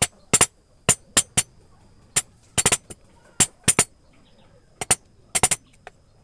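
Wooden mallet tapping a carving chisel into wood: sharp, irregular taps, some single and some in quick runs of two or three.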